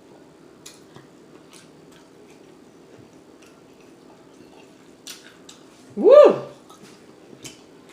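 Faint, scattered wet mouth clicks and smacks of eating over a low steady hum; about six seconds in, a woman's loud "Woo!".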